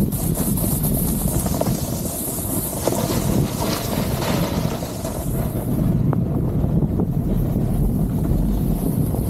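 Heavy wind noise on the microphone from riding at speed, with a snowboard's edges scraping and hissing over packed snow. The hiss fades about halfway through while the low wind rumble carries on.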